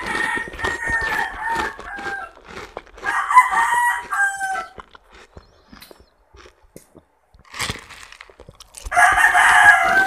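Rooster crowing three times: at the start, about three seconds in and near the end. Each crow is a long held call that falls away at its end. Short crisp crunches of unripe mango being bitten and chewed are heard between the crows.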